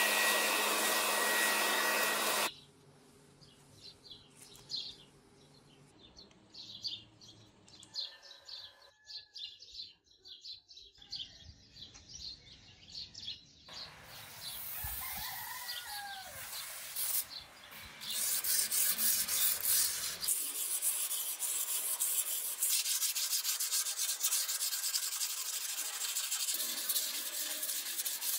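A charcoal forge fire under forced air rushes steadily for about two seconds and cuts off. Later, a few seconds after a quiet stretch, a hardened Damascus steel sickle blade (52100 bearing steel with 1020 iron) is hand-sanded with a sanding block: a steady, dense rubbing scrape.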